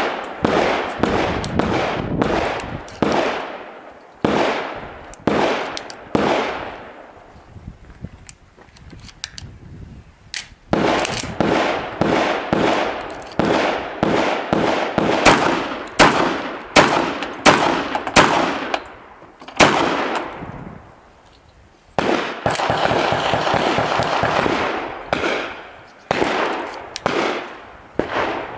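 Shotgun and other firearms fired in quick succession on an outdoor range, each report dying away over a fraction of a second. Single shots come about a second apart at first, then fast strings of shots from about ten seconds in, with a tightly packed run of rapid fire about three quarters of the way through.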